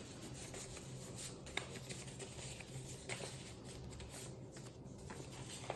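Faint rustling of small paper number slips being shuffled between the hands, with a couple of light ticks.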